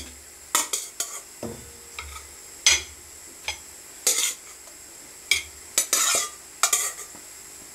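Flour-coated beef meatballs being laid into a hot frying pan: a utensil clinks and scrapes against the pan and plate in quick irregular knocks, with short sizzles as the meatballs land in the oil.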